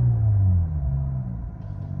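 2024 Cadillac CT5-V's twin-turbo 3.0-litre V6 with a straight-piped exhaust, revved in park and heard from inside the cabin: the revs fall from about 3,000 rpm toward idle and the sound drops away, with faint crackles near the end.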